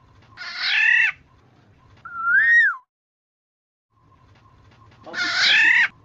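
Black-naped oriole calling: a harsh, nasal call about half a second in, a single fluted whistle that rises then falls a couple of seconds in, and another harsh call near the end. This is a recorded oriole lure call.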